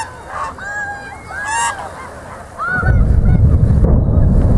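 Geese honking, then about three seconds in a sudden deep rumble sets in and stays loud: the sound of the chimney demolition arriving from across the water.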